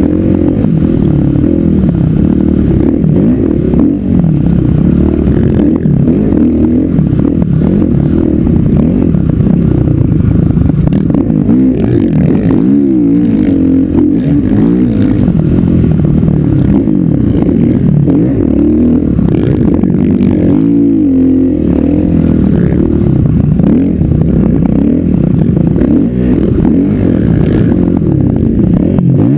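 Dirt bike engine heard close from the rider's helmet camera, revving up and down continually as the throttle is worked. The revs drop sharply and climb again twice, about a third of the way in and about two-thirds in.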